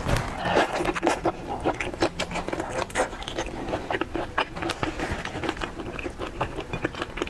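Close-miked eating sounds of a person chewing seafood, a dense run of quick wet clicks and smacks.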